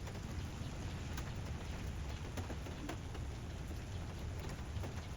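Steady rain falling, with scattered drops ticking on the surfaces around it over a low rumble.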